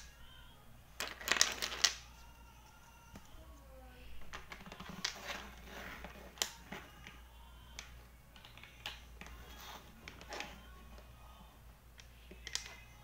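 Plastic interlocking toy bricks clicking and clattering as they are handled, pressed together and set down on a table, in scattered knocks with a denser flurry about a second in.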